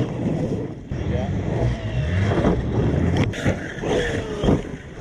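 Traxxas X-Maxx electric RC monster truck driving on dirt, its brushless motor whining up and down in pitch as the throttle is worked over a low rumble of tyres on the ground, with a sharp knock about four and a half seconds in as it lands from a jump.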